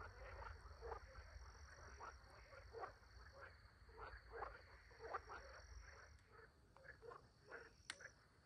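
Faint chorus of frogs croaking: short calls coming irregularly, a few each second.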